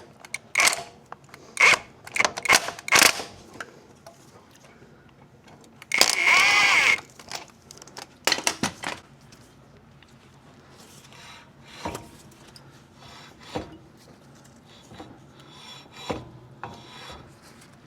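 Scattered metallic clicks and knocks of hand tools and suspension parts being worked, with one louder scraping screech lasting about a second near the middle, while a front axle shaft is being worked into place.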